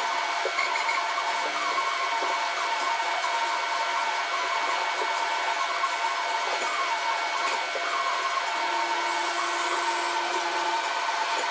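Steady machine-shop running noise: an even hiss with several constant high-pitched whines from running machinery. A faint low hum joins in for about two seconds near the end.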